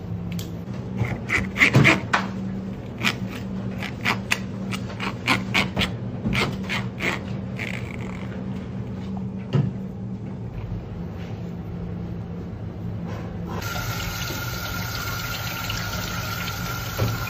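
A knife makes sharp clicks and scrapes while gutting garfish on a cutting board, over a steady low hum. About fourteen seconds in, a kitchen tap starts running into a stainless steel sink as the fish is rinsed, a steady hiss of water.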